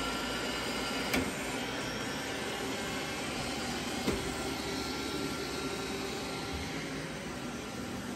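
Robot vacuums running: a steady whir of suction motors and brushes, with two sharp knocks, one about a second in and another about four seconds in.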